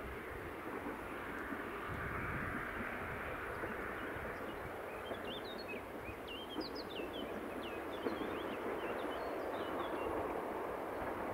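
Small birds chirping in many short, quick notes, busiest from about three seconds in, over a steady outdoor background hiss with an irregular low rumble.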